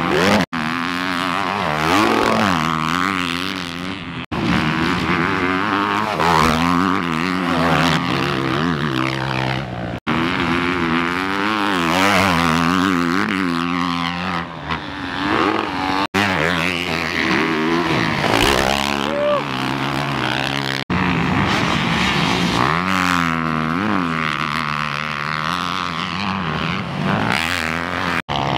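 Motocross dirt bikes racing, their engines revving up and down as riders work the throttle and shift through the corners. The sound breaks off abruptly every few seconds and picks up again.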